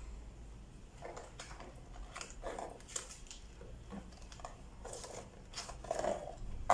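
Cardboard toy box with a plastic window being handled and opened by hand: an irregular run of short rustles, scrapes and taps, the loudest near the end.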